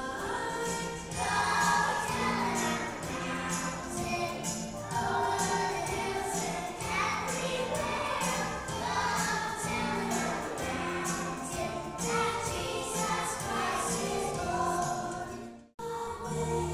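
A group of young children singing a Christmas song together over a music accompaniment with a jingle-bell beat about twice a second. The sound cuts out abruptly near the end, and a different, gentler accompaniment begins.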